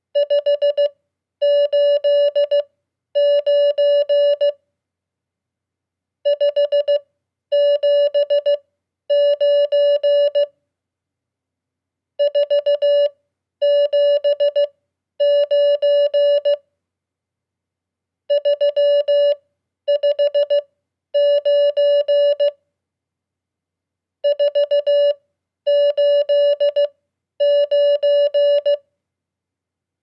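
Morse code (CW) sent at 15 words per minute as a single steady beeping tone. Five three-digit RST signal reports go out one after another, 589, 579, 479, 359 and 489, with a pause of about a second and a half after each.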